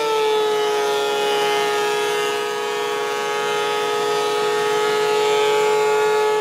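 Benchtop thickness planer (a Delta with a three-knife cutterhead) running with a loud, steady high whine while planing a board. Its pitch sags a little just at the start as the board takes the cut, then holds.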